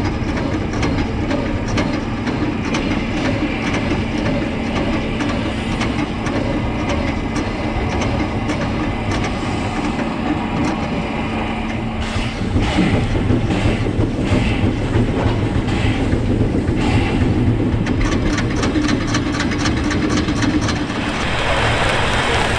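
1919 Krauss 0-8-0 tank steam locomotive running light along the track: a steady rumble of wheels on rail with a low hum in the first half. From about halfway a run of knocks and clanks, and near the end the sound turns brighter and hissier.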